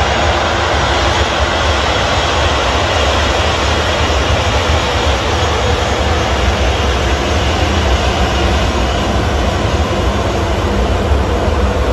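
Jet airliner engines running with a loud, steady roar and a deep rumble underneath.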